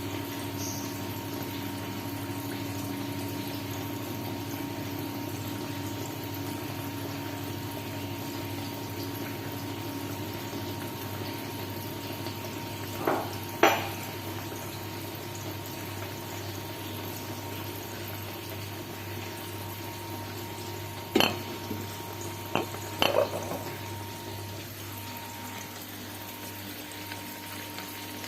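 Steady hiss of food cooking in a pan on the stove, with sharp clanks of a utensil against the cookware: two about halfway through and three more near three-quarters of the way.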